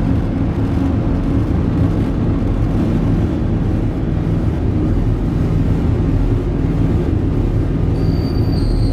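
Soma Labs Lyra-8 analog drone synthesizer playing a dense, steady low rumbling noise drone, heavily reverberated; near the end thin high squealing tones come in over it.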